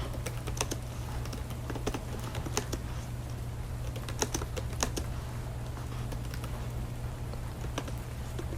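Typing on a computer keyboard: irregular key clicks, with some louder keystrokes standing out, over a steady low hum.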